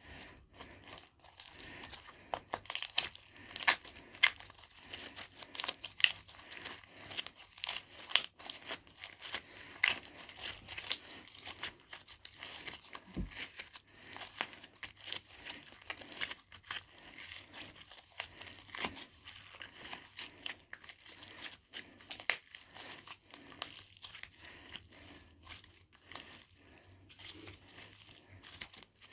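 Slime and soft clay being kneaded and mixed together by hand into butter slime, giving a steady stream of irregular sticky clicks and crackles.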